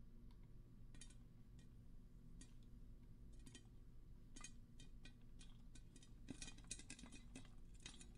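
Popcorn popping, faint: a few scattered pops at first, coming faster and closer together in the last couple of seconds.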